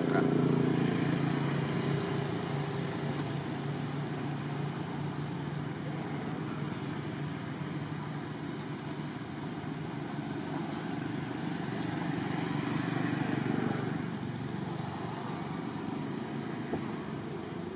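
Motor vehicle engine noise in the background: a steady low drone, with one swelling louder and fading again about twelve to fourteen seconds in, as a vehicle passes.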